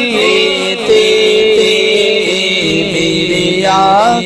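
Unaccompanied male voice singing an Urdu naat through a microphone, holding long drawn-out notes that shift slowly in pitch between the lines of words.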